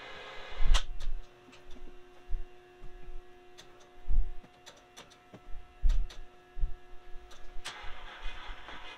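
A run of irregular dull thumps and knocks over a steady electrical-sounding hum, with a short burst of hiss at the start and again near the end.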